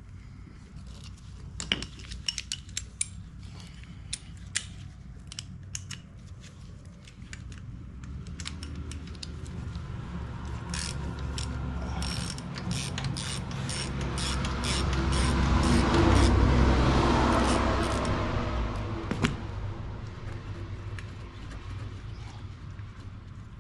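A 3/8-inch ratchet with an 8 mm socket clicking in quick runs as the oil filter cover bolts are backed out. A low rumbling swell builds up in the middle, peaks, then fades.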